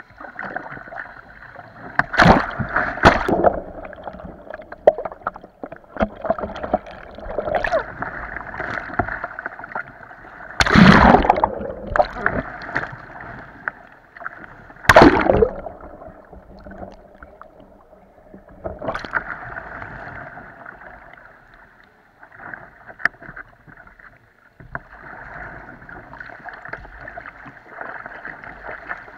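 Kayak paddle strokes splashing in pool water, with water sloshing and gurgling against the kayak's hull, heard from the bow. Several loud splashes come about 2, 11 and 15 seconds in, the boat heeling hard over around the later ones.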